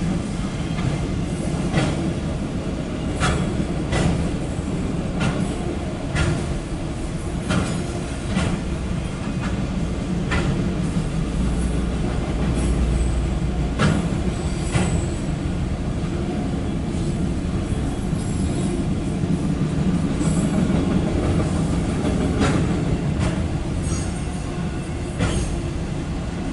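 Loaded autorack freight cars of a CSX train rolling past: a steady rumble of steel wheels on rail, broken by frequent irregular clicks and knocks as the wheels cross the rail joints.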